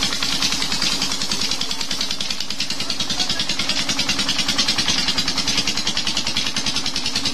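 Petter stationary diesel engine running steadily on pure jatropha oil, its firing strokes making a fast, even clattering beat.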